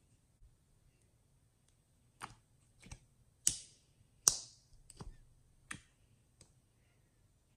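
Dish soap and Listerine slime being poked and pressed with a finger in a small plastic container, giving about six sharp sticky clicks and pops, the two loudest just past the middle.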